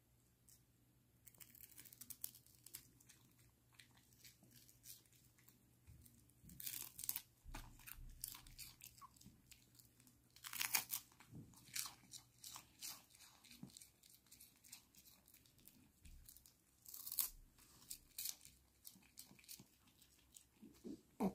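Small dog crunching and chewing a capelin fish treat: irregular sharp crunches that start about a second in, the loudest about halfway through.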